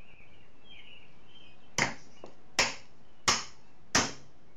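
A hammer driving a 16-penny nail into a wooden block with four sharp blows, a bit under a second apart, starting nearly two seconds in.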